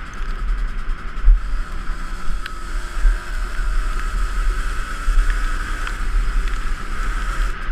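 Heavy wind buffeting on an action camera's microphone over a two-stroke dirt bike engine running, with a few light clicks.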